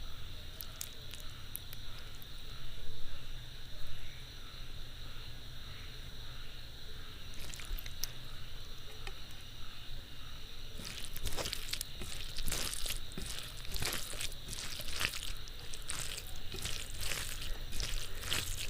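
Close-miked eating of rice with fish curry and dal: wet squishing and smacking, sparse at first, then a dense run of sticky clicks and smacks from about eleven seconds in. A steady high hum runs underneath.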